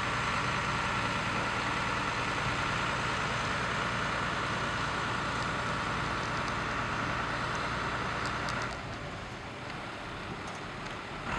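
Fire engines running steadily at the scene, a constant engine drone with a held whine above it. It drops noticeably in loudness about nine seconds in.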